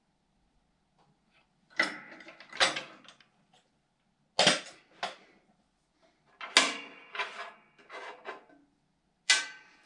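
Metal discharge-chute cover assembly clanking and rattling as it is lifted off a steel mower deck and set down on the floor: a series of sharp knocks with brief ringing.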